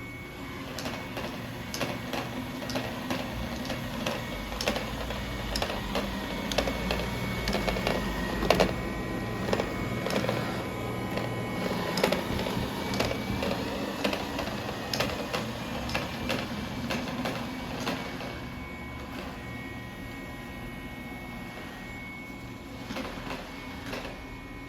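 Robot vacuum running: a steady motor whine with many irregular clicks and knocks, busiest in the middle and easing off toward the end.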